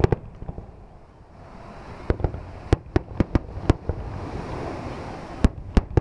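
Fireworks going off: a string of sharp bangs at irregular intervals, with a quick cluster of them around the middle, over steady background noise.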